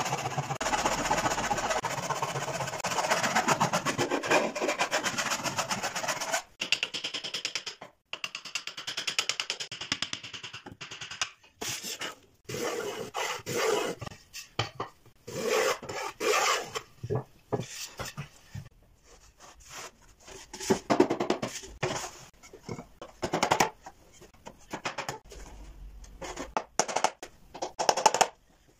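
Hand woodworking tools on wood: a scraper drawn rapidly back and forth across a thin board for about six seconds, then separate shaving strokes of a wooden hand plane and scattered knocks.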